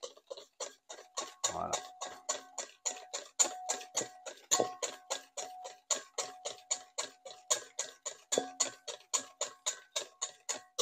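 Hand whisk beating mayonnaise in a bowl: the wires tap the bowl in a quick, even rhythm of about five strokes a second as oil is whisked into egg yolk and mustard to emulsify it.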